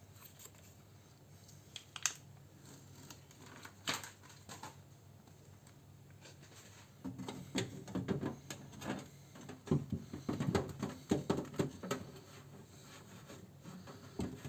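Butyl sound-deadening sheets being handled and pushed into place inside a steel car door: a few separate clicks, then from about halfway a spell of crinkling, rubbing and light tapping.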